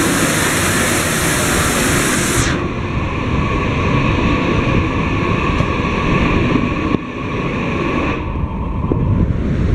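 Narrow-gauge steam locomotive blowing down its boiler: a loud hiss of steam that drops to a quieter hiss after two or three seconds and dies away near the end, over the low rumble of the rolling train.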